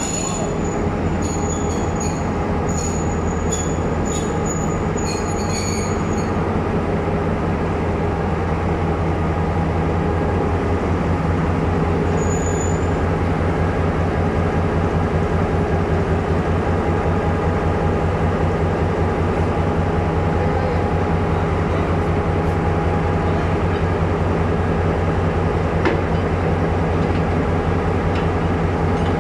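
Diesel locomotive engine running close by with a steady low drone. A few short, high squeaks come in the first six seconds or so.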